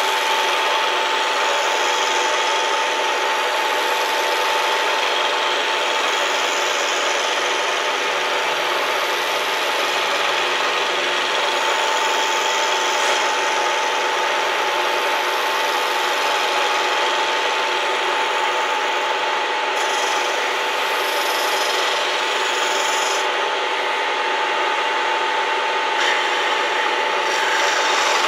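Bridgeport milling machine running a program under its ProtoTrak CNC retrofit, the spindle giving a steady whine while the cutter rasps through the workpiece.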